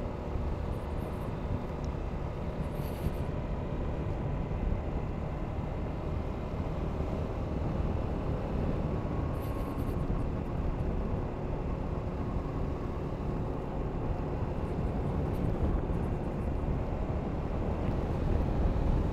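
Honda Forza 250 scooter riding at a steady cruise: its engine running evenly under road and wind rumble, getting a little louder near the end.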